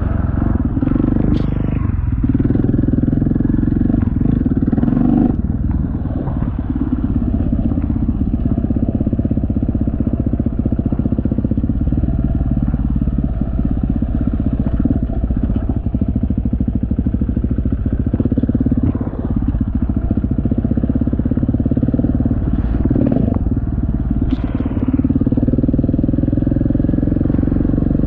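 Enduro motorcycle engine running steadily as the bike is ridden along a gravel track, the pitch rising and falling slightly with the throttle. Two sharp clicks come about a second in and again near the end.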